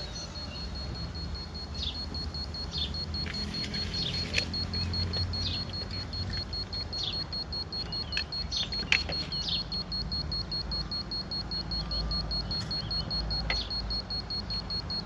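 Timber building work: scattered sharp knocks and clicks, two of them louder, over a steady high-pitched buzzing whine and a low rumble.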